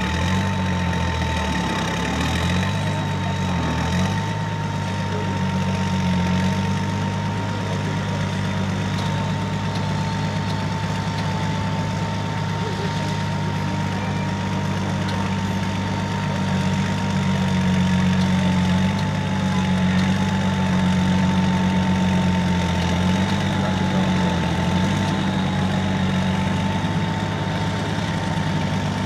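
Unimog 404 prototype trial truck's engine running at low, fairly steady revs as it crawls over a dirt mound, with a steady high whine above the engine's drone.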